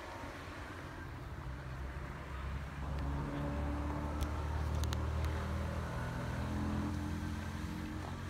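A motor vehicle engine running steadily with a low hum that grows a little louder about three seconds in.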